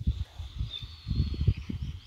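Outdoor ambience with wind gusting on the microphone in low, uneven rumbles, stronger in the second half, and a faint steady high-pitched tone above it.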